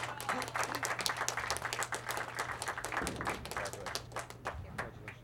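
Small audience applauding, many hands clapping, the clapping thinning out toward the end.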